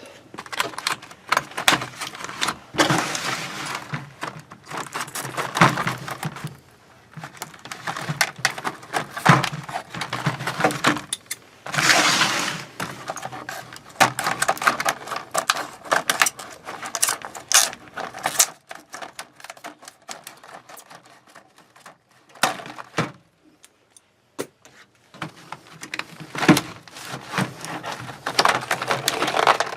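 Stiff plastic blister packaging being worked open by hand: irregular crackling, snapping and crinkling, with a quieter stretch about two-thirds of the way through.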